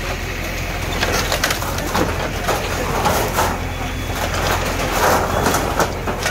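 JCB backhoe bucket crushing a heap of wooden planks, doors and tin sheeting, with repeated cracks and crashes of splintering wood and scraping metal from about a second in. The machine's diesel engine runs underneath as a steady low hum.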